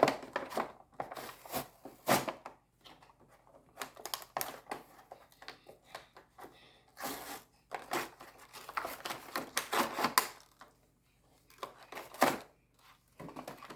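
Action-figure packaging being opened by hand: irregular clicks, rustles and crinkles of cardboard and plastic, with short pauses between bouts.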